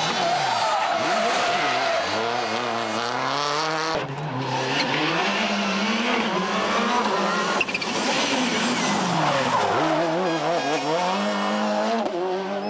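Subaru Impreza rally cars' turbocharged flat-four engines revving hard, the pitch climbing and dropping through quick gear changes, across several short passes cut together.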